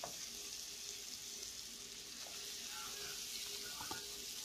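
Shrimp and cucumber slices sizzling steadily in oil in a frying pan, with a metal spoon stirring and clicking faintly against the pan a couple of times.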